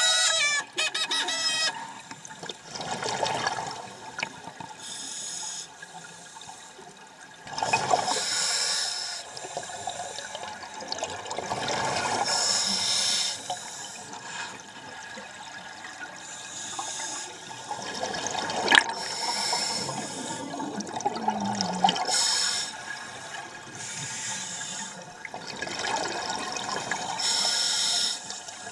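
Scuba breathing heard underwater: a regulator's exhalations bubbling out in surges about every four to five seconds, with quieter hissing between them and one sharp click about two-thirds of the way through.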